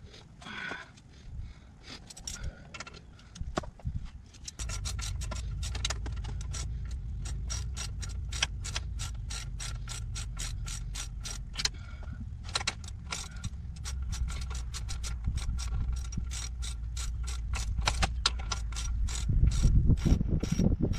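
Hand ratchet wrench clicking rapidly, about four to five clicks a second, as a nut is turned at the Jeep's front steering knuckle, with a short pause partway through. A steady low rumble runs underneath, and a few heavier knocks come near the end.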